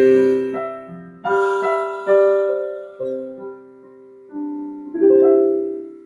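Keyboard playing slow, sustained piano chords, a new chord struck about every second, the last one ringing out and fading near the end: the closing bars of a slow, calm song.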